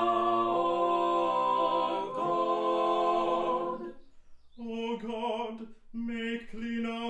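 Four-voice a cappella ensemble singing a held chord that dies away about four seconds in. A single male voice then chants the next phrase on one steady note.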